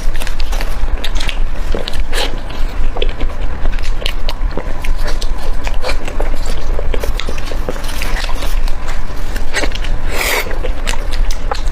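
A person biting and chewing food close to the microphone, a dense run of short clicks, with a louder noisy burst about ten seconds in.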